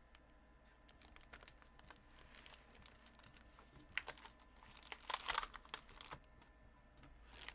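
Sheets of metallic origami foil being handled and leafed through, giving faint crinkles and clicks, with a denser run of crinkling about four to six seconds in.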